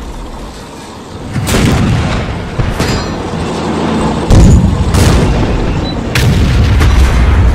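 Battle sound effects of tank guns firing and shells exploding: a string of booms and shots about a second apart, the loudest about four seconds in, over a low steady rumble.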